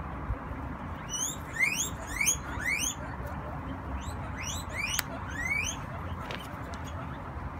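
Guinea pig wheeking: two bouts of short rising squeals, about three a second. A single sharp click about five seconds in, from small nail clippers snipping a guinea pig's claw.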